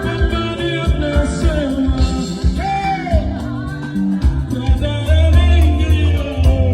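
Gospel song with singing over a band, a strong bass line and a steady beat beneath the wavering sung melody.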